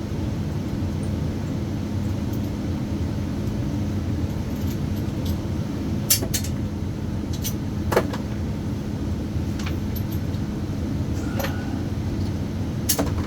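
Steady low hum with a few sharp metallic clicks and clinks from tool and hardware handling, two near the middle and one near the end.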